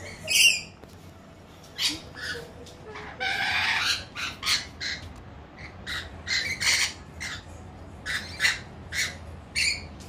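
Rainbow lorikeets giving a rapid series of short, shrill screeches, with one longer, harsher call about three seconds in.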